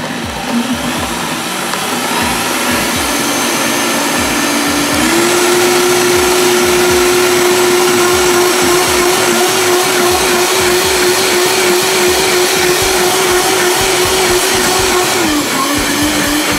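Vitamix blender running on high, puréeing cooked carrots with stock and heavy cream: a steady motor whine that steps up in pitch about five seconds in and dips slightly near the end.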